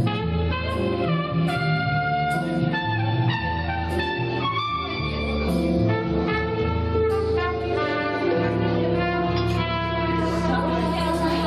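Instrumental music: a melody of held notes, changing about every half second, over a steady bass line.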